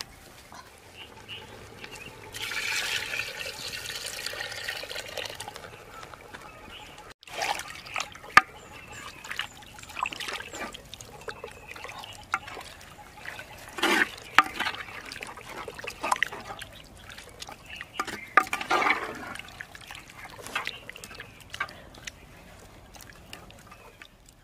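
Wooden spoon stirring thick chicken curry gravy in a clay pot: wet, squelching liquid sounds with occasional sharp knocks of the spoon against the pot.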